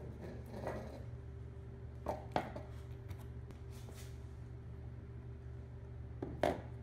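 Clinks and knocks of a 545RFE transmission's aluminium valve body and solenoid pack being lifted off the case and handled, with two sharper knocks about two and a half seconds in and near the end, over a steady low hum.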